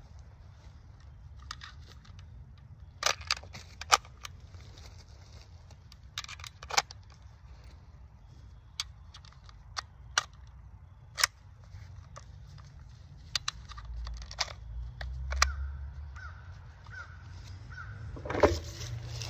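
About a dozen scattered sharp clicks and knocks over a low steady rumble. Geese start honking near the end.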